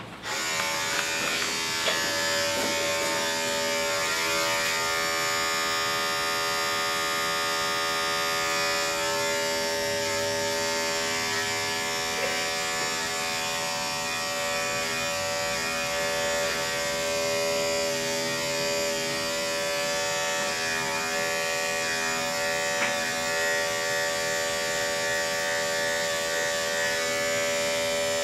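Andis 5-speed electric dog clippers fitted with a 40 blade, switched on at the start and running with a steady buzz.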